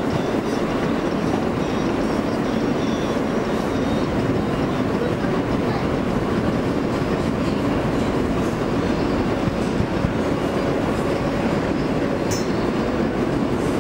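Running noise inside a Kawasaki R143 subway car under way: a steady rumble of wheels on rails and the car's running gear. A brief high squeak comes near the end.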